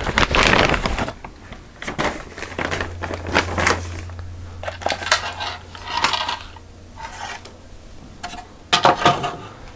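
Small hard parts handled and set down: irregular clicks, knocks and rattles, busiest at the start and again near the end. A low steady hum runs through the middle.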